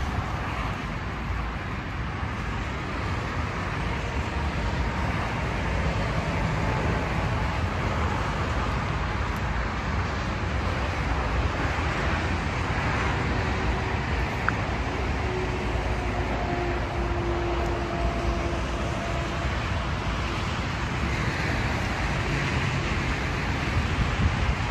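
Steady noise of road traffic passing on a nearby motorway, even in loudness, with faint drawn-out tones from passing vehicles in the middle.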